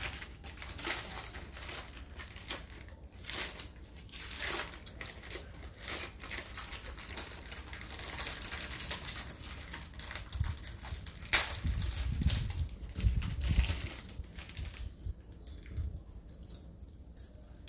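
Glass bangles clinking and rattling lightly against each other as a stack is turned over in the hand, in a run of small irregular clicks. In the later part come a few soft low thumps of handling and one sharper clink.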